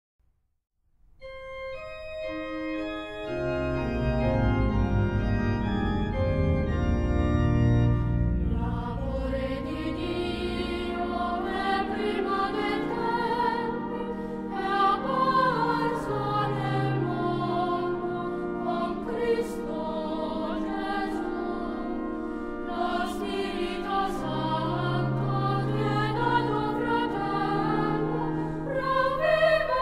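Background choral music. An organ opens with sustained chords, and a choir comes in singing over it about eight seconds in.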